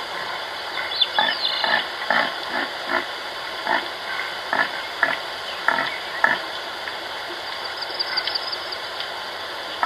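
Pig grunting and squealing in a run of short calls over a steady background hiss. The calls come close together in the first two-thirds and thin out near the end.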